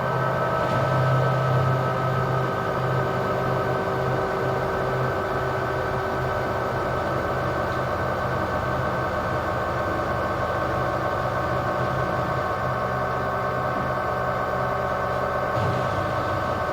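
LG washing machine in its spin cycle, the drum turning at a steady speed with a constant hum and whine.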